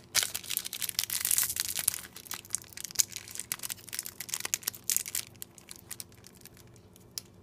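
Foil Adrenalyn XL trading-card pack crinkling and crackling in the hands as it is pulled and torn at, the wrapper resisting being opened. The crinkling thins out after about five seconds to a few faint crackles.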